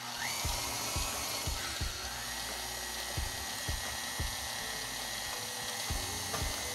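KitchenAid Artisan stand mixer starting up and running with a steady motor whine, its flat beater churning thick cake batter in the steel bowl. The whine steps up in pitch twice in the first couple of seconds, then holds, with a soft knock about every half second.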